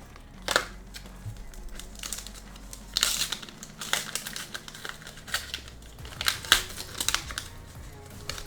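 The wrapper of a McDonald's Pokémon card pack crinkling and tearing as it is opened by hand, in irregular sharp rustles, loudest about three seconds in and again near six and a half seconds.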